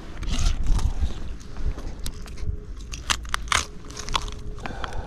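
Knife crunching through the bones of snapper heads: a run of sharp crackling cuts and scrapes.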